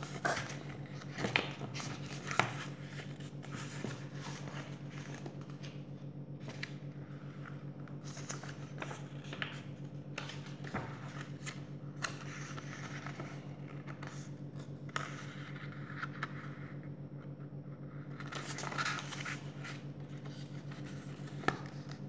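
Paperback picture book being handled and its pages flipped: scattered paper rustles, taps and scrapes, with a longer run of rustling near the end. A steady low hum runs underneath.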